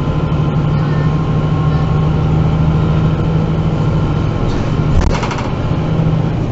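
MAN NG 313 articulated bus's six-cylinder diesel engine running steadily, heard from inside the bus as a deep, even hum. About five seconds in, a short hiss and a low thump cut in briefly.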